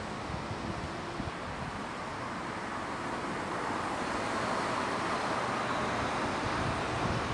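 Outdoor rush of road traffic with wind buffeting the microphone; the traffic noise swells in the second half.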